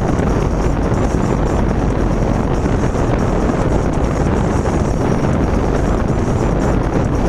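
Loud, steady wind rush through the partly open passenger window of a moving 4th-generation Ford Mustang, heard from inside the cabin.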